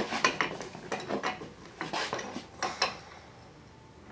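Light metallic clinks and rattles from a headset press tool as its cup and T-handle are handled and threaded onto the press rod. The clinks come irregularly over the first three seconds, then die down.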